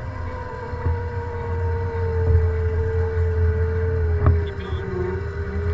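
Steady whine of a Razor electric motorcycle's motor and chain drive under way, its pitch sinking a little about five seconds in and then rising again as the speed changes. A low rumble runs underneath, with a couple of brief knocks.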